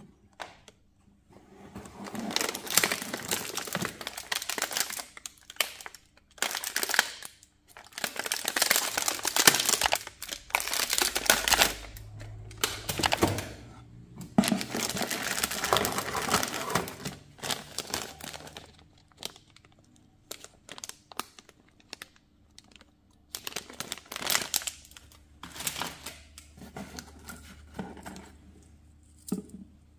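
Clear plastic packaging crinkling and rustling as hands handle bagged parts in a cardboard box. It comes in long stretches during the first half, then in shorter separate bursts.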